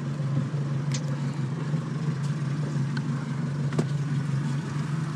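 Boat engine idling with a steady low hum, and two faint clicks over it.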